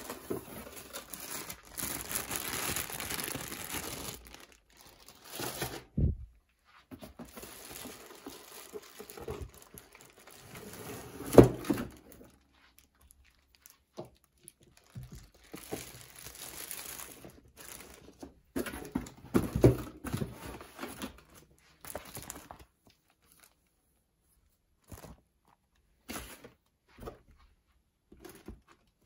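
Packaging being unpacked by hand: irregular crinkling, rustling and tearing of wrapping, with a sharp knock about eleven seconds in and a softer one a few seconds earlier.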